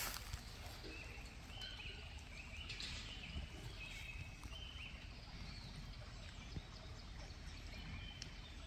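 Outdoor background: a steady low rumble with scattered short, high chirps from small animals, several over the few seconds.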